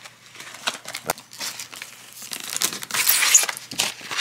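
Parcel packaging being opened by hand: a run of crinkles, scrapes and clicks as tape and cardboard are cut with a pocket knife. About three seconds in comes a louder tearing rip as a paper mailing envelope is torn open.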